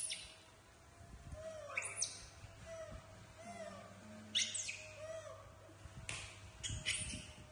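Baby macaques giving short, high-pitched rising squeaks, about four of them a couple of seconds apart, with the crinkle of a plastic snack bag being handled.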